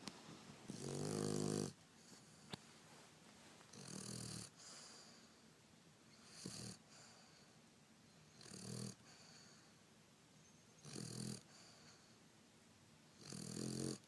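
Boston Terrier snoring in its sleep: six snores at a steady pace, about one every two to two and a half seconds, each a brief low buzz with a hiss on top. The first, about a second in, is the loudest.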